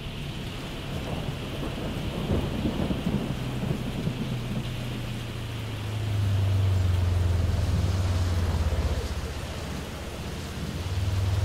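Rain on a vehicle's cab and windshield over its engine running, with a rough low rumble early on. The engine gets louder about six seconds in, eases off near ten seconds and rises again at the end.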